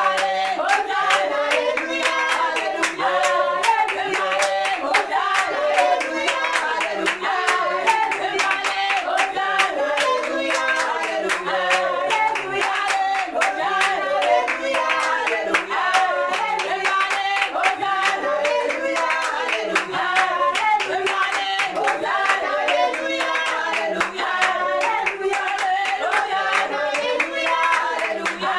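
Small congregation singing a worship song together and clapping along in a steady rhythm.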